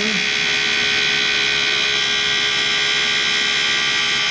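Vintage Cincinnati tool and cutter grinder running a 6-inch diamond parting wheel at 4500 rpm while it saws through thick carbide: a steady high-pitched whine made of several steady tones, unchanging in level.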